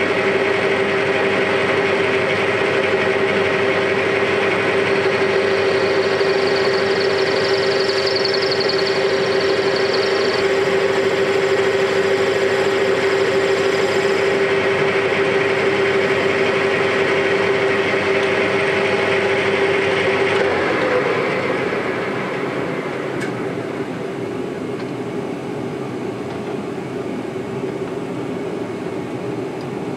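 Metal lathe running with a steady whine while a turning tool cuts down the outside diameter of a metal bush held in a four-jaw chuck. About 20 seconds in the lathe is switched off and the sound drops to a lower, steady hum.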